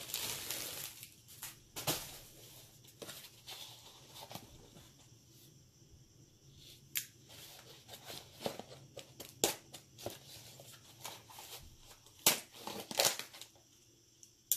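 Plastic shipping packaging crinkling and rustling as a parcel is handled and cut open with a knife, with scattered sharp crackles and taps.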